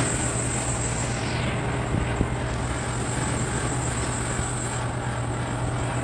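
Steady low machine hum with an even rushing noise, and a faint click about two seconds in.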